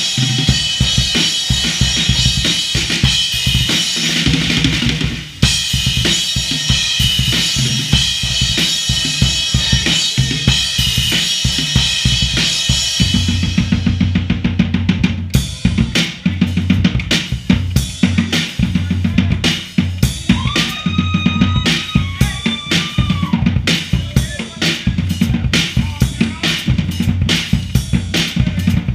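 Drum kit solo played live: fast drumming under a steady wash of cymbals, then about 14 s in the cymbals drop away and rapid bass drum and tom strokes carry on.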